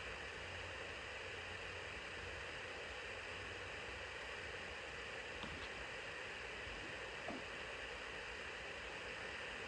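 Steady, even hiss of background noise, with a couple of faint light taps about five and seven seconds in.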